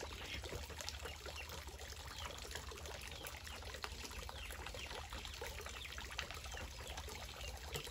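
A thin stream of water from a hose pouring steadily into a pond, trickling and splashing on the surface.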